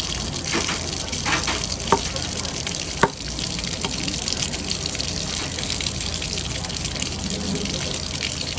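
Tap water pouring steadily onto a wet wooden cutting board, with two sharp clicks about two and three seconds in, from the knife knocking against the board.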